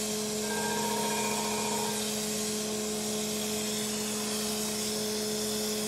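Crankshaft grinder grinding a rod journal of a Cummins L10 crankshaft, its wheel against the journal with coolant flowing: a steady machine hum with a steady hiss, and a fainter higher ringing tone in the first two seconds.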